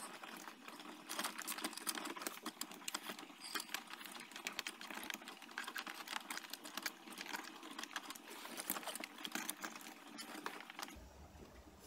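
Irregular light clicking and rattling of hands fishing wiring and knocking against plastic inside a car dashboard's radio opening.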